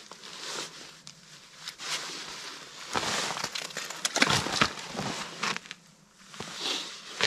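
Rustling of a winter jacket and boots crunching in snow as a person bends down and sits, with a few sharp clicks; loudest from about three to five seconds in.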